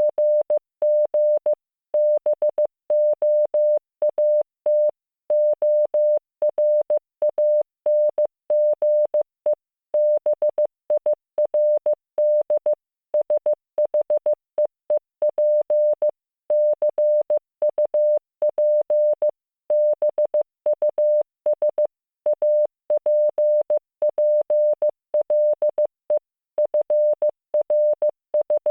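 Computer-generated Morse code: a single steady mid-pitched tone keyed on and off in short dots and longer dashes with gaps between letters and words. It spells out simple English words.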